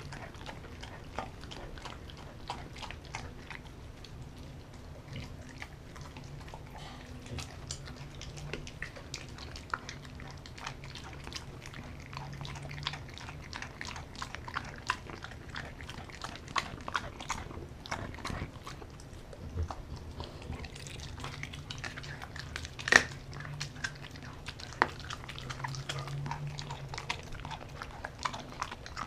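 Dog chewing and biting raw meat up close: wet chewing with many small clicks of teeth, and one sharper click about three-quarters of the way through.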